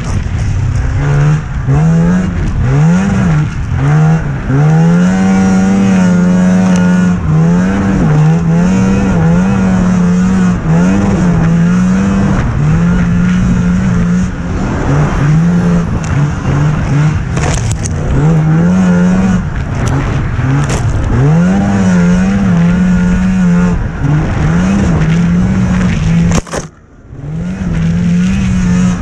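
Snocross racing snowmobile engine, heard close up from the rider's helmet camera, revving up and dropping back over and over as the throttle is worked through the track, over a heavy rush of track and air noise. Near the end the sound drops away sharply for a moment before the engine picks up again.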